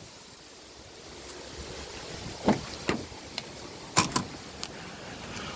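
A few scattered knocks and clicks, about five in the second half, from someone handling things around a car's open driver's door, over a faint steady background.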